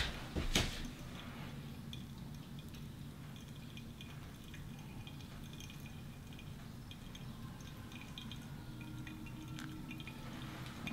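A thin stream of hot water from a gooseneck kettle trickles onto the wet coffee grounds in a Hario V60 pour-over dripper, with small scattered drips and crackles over a steady low hum. There are a couple of sharp clicks right at the start.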